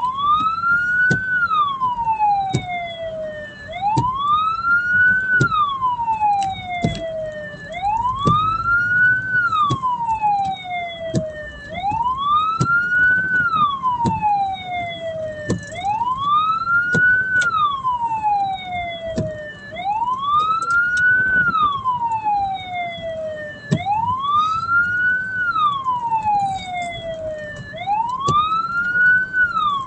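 Hearse's siren wailing in slow, even cycles, each rising quickly and then sliding down, about one every four seconds, over low vehicle noise.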